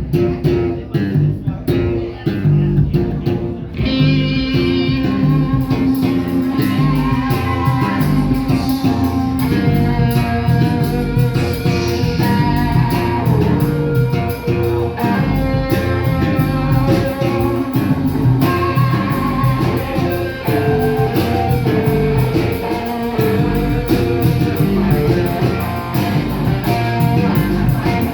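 Live rock band playing funk rock with drums, bass guitar and electric guitar. Bass and drums play alone at first, and the electric guitar comes in about four seconds in.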